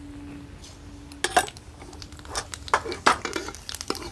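Metal utensils clinking: a small steel spoon against a steel spice box and a steel ladle against a metal kadai. There is one sharp clink about a second and a half in, then several lighter taps.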